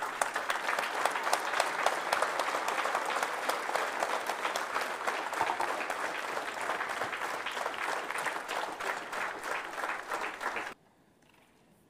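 Audience applauding: dense clapping from a large crowd that cuts off abruptly near the end.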